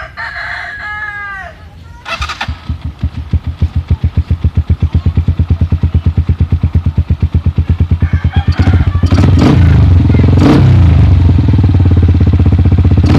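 A rooster crows once at the start. About two seconds in, a Rusi KR motorcycle with a modified exhaust pipe starts and idles with an even, pulsing exhaust beat. It revs up louder at about eight and a half seconds, with a few sharp cracks from the pipe.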